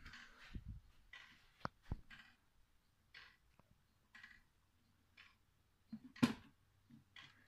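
Weight-driven pendulum wall clock ticking about once a second. A few dull knocks come in the first two seconds, and a sharp click about six seconds in.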